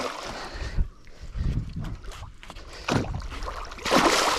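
A big hooked snakehead thrashing and splashing at the surface right beside a small boat, with irregular dull knocks. A loud burst of splashing comes near the end.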